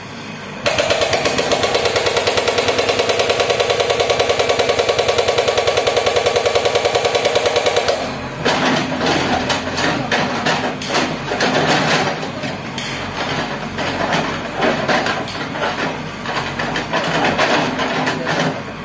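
Hydraulic rock breaker on a CAT backhoe loader hammering into rock in rapid, even blows. It stops suddenly about eight seconds in, leaving the machine running with irregular knocks and clatter of rock.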